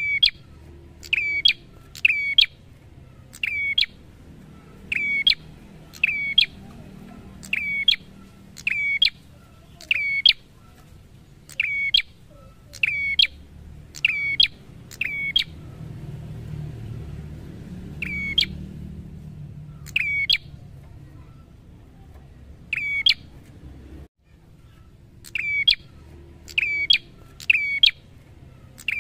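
Caged prenjak (a tailorbird) calling over and over: loud, sharp, quick chirps about one a second, sometimes in quick pairs, with a few quieter seconds around the middle.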